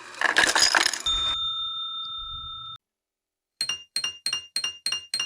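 Cartoon sound effects: a short noisy whoosh, then a steady two-note tone held for about a second and a half that cuts off abruptly, and after a brief gap a quick, even run of bright bell-like chimes, about four a second.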